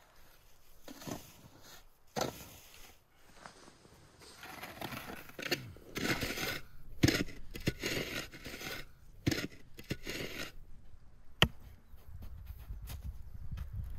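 Metal snow shovel scraping and scooping through packed snow in a series of strokes, then a single sharp knock of an axe striking a log about eleven and a half seconds in.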